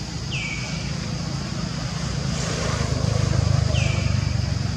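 A vehicle passing on a nearby road, a low rumble that swells to its loudest about three seconds in. Two short high chirps falling in pitch come about three and a half seconds apart, over a steady high hiss.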